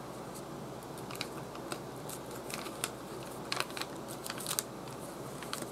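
Paper pages and tags of a handmade junk journal being handled and turned by hand: scattered short rustles and light clicks, busiest about three and a half to four and a half seconds in.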